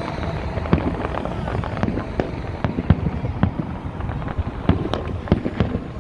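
Fireworks going off: a dense, irregular run of sharp pops and bangs, several a second.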